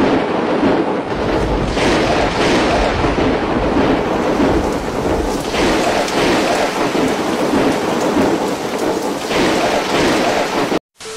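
Heavy rain pouring in a violent storm with strong wind, a dense loud rush that swells louder several times and cuts off abruptly near the end.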